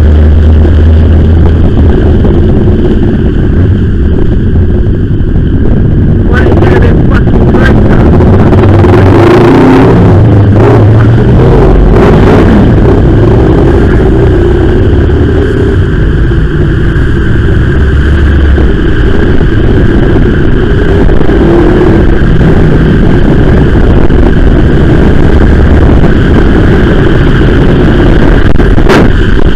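Loud, steady traffic noise with a motorcycle engine running, heard through a bike-mounted camera's microphone with heavy low wind rumble; it turns noisier for several seconds in the first half.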